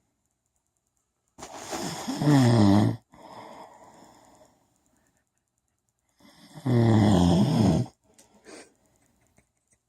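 A man snoring loudly: two long snores about five seconds apart, each building up and then loud with a wavering pitch, with quieter breathing after them.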